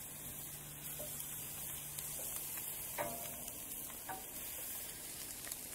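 Chicken drumsticks sizzling on a hot grill grate as they are turned over with metal tongs, with a few light clicks of the tongs around the middle.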